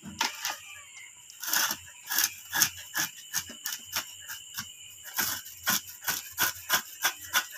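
Irregular sharp clicks, about two or three a second, over a steady high-pitched drone of night insects.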